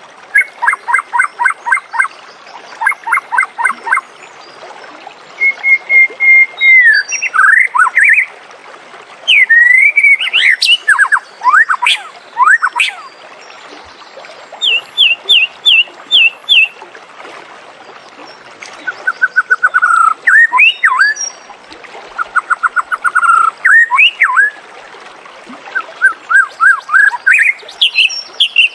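White-rumped shama (murai batu) singing. It gives varied phrases of quick repeated notes, whistled glides and short trills, with pauses of a second or two between phrases.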